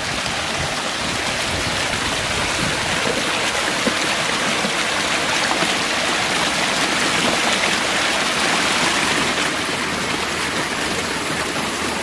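Steady rush of water cascading down the tiers of a pump-fed stepped rock waterfall, running at a heavy flow.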